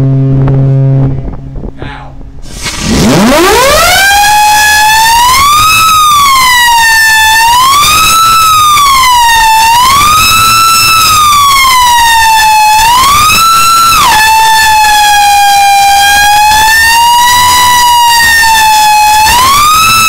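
Steam whistle on the funnel of the steamship Shieldhall blowing one long blast. It slides up in pitch at the start, then swoops up and down over and over as the whistle valve is worked. A deep horn note sounds briefly at the very start.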